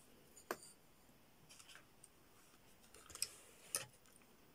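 Near silence broken by four faint, short clicks and light taps from handling the equipment.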